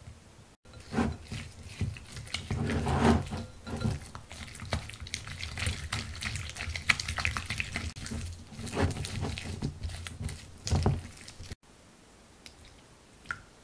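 Silicone spatula beating a freshly added egg into choux pastry dough in a glass bowl: rapid, irregular mixing strokes against the dough and glass. The mixing stops abruptly about two seconds before the end.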